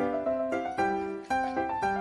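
Background music: a light tune of short notes, with the notes changing about twice a second.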